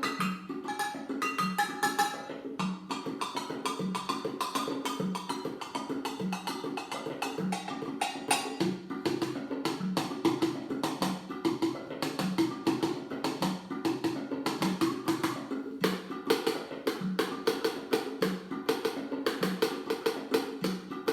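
Percussion music: a fast, even stream of sharp clicking strikes over a low drum beat about once a second, with a few ringing pitched notes near the start.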